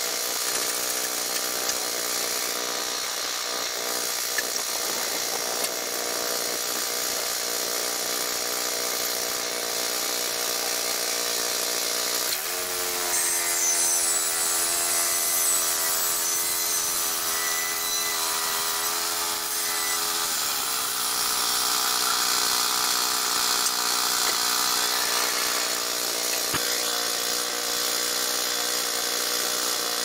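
Harbor Freight portable bandsaw mill running, its gasoline engine driving the band through a log as the saw head is pushed along. About twelve seconds in, the engine's pitch drops and wavers for some eight seconds before rising back, the engine pulling down under the load of the cut.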